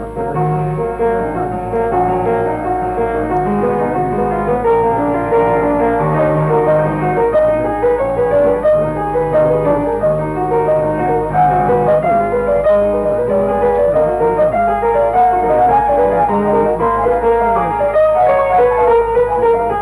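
Background piano music, a lively run of notes over a low accompaniment, possibly with other instruments faintly beneath.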